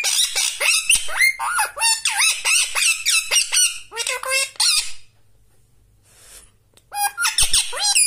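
Indian ringneck parakeet chattering in a rapid string of high-pitched squawks and chirps. It pauses about five seconds in and starts again near the end.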